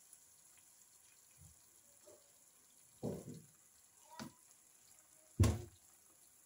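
Faint sizzle of beaten egg cooking in a pan over fried onions, broken by a few short knocks and thumps of kitchen handling, the loudest about five and a half seconds in.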